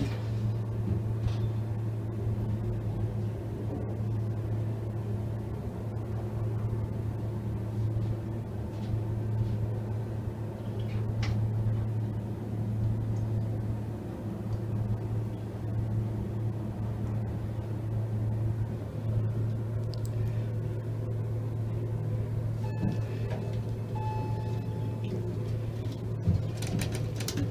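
Otis traction elevator car travelling, heard from inside the cab as a steady low hum with ride rumble. A few faint tones rise out of it in the last few seconds, and a single click sounds near the end.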